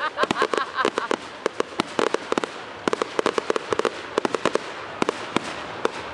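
Fireworks display: a rapid, dense run of bangs and crackles from bursting aerial shells, many per second.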